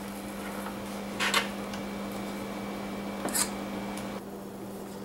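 A metal spoon scraping ground pork off the outlet plate of a hand-cranked meat grinder: two short scrapes about two seconds apart.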